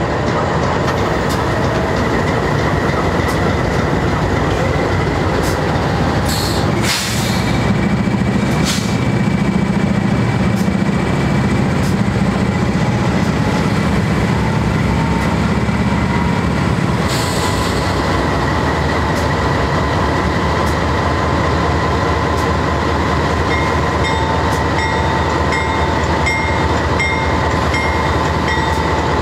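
GE C44-9W diesel locomotive, its 16-cylinder 7FDL engine running and loading up as the train starts to move off, with a deeper engine note for about ten seconds in the first half. Short hisses of air come near the start of that stretch and again at its end, over a steady whining tone.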